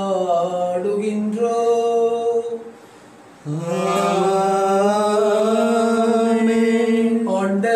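A man's voice chanting a liturgical line in long, held notes. There are two phrases, with a short pause about three seconds in.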